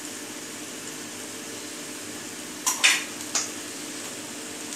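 Pasta and vegetables sizzling steadily in a hot pot, with a spoon scraping against the pot three times in quick succession about halfway through as the food is stirred.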